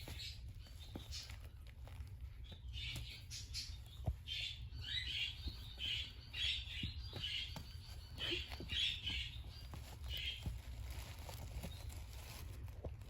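Young kittens giving a run of short, high-pitched mews, about two a second, starting a few seconds in and stopping shortly before the end, over faint pattering and a steady low hum.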